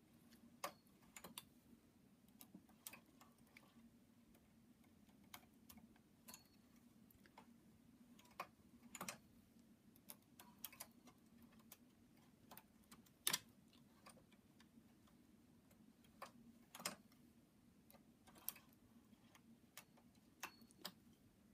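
Faint, irregular light clicks of metal needles and a hand tool on a Brother knitting machine's needle bed as stitches are cast off by hand around the gate pegs, about one every second or two, over a faint low hum.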